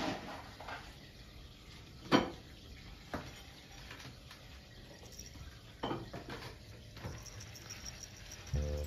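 Low room tone with a few scattered light knocks and clinks, the loudest about two seconds in. Music starts just before the end.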